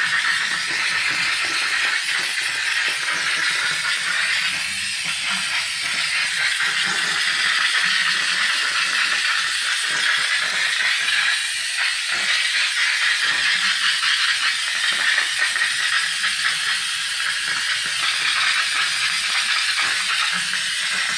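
Steam cleaner's jet nozzle with concentration tip, set to its lowest steam setting, blowing a continuous steady hiss of steam that cuts off at the end.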